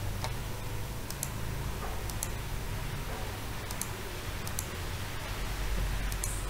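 Computer mouse clicking about six times at irregular intervals, each a quick press and release, picking sketch lines to trim, over a low steady hum.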